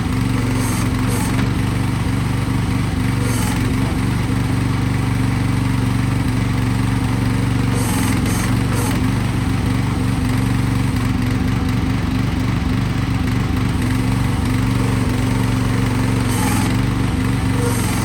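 KX12-CB mini excavator's engine running steadily at a constant speed, with a few brief high-pitched hisses while it works.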